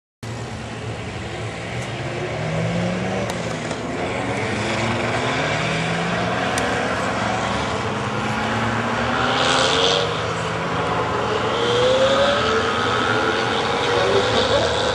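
Racing cars accelerating along a circuit straight, heard from a distance: their engines climb in pitch again and again as they change up through the gears, over a steady wash of engine and track noise. The sound cuts in abruptly and grows gradually louder.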